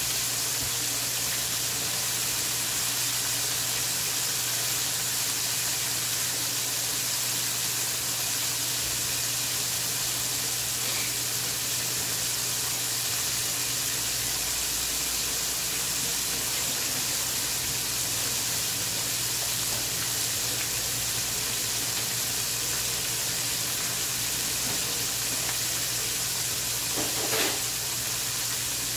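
Battered chicken wings deep-frying in a pan of hot oil: a steady sizzle of bubbling oil, with one brief louder sound near the end.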